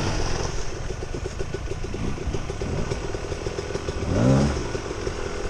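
Dirt bike engine running, with a short rising rev about four seconds in.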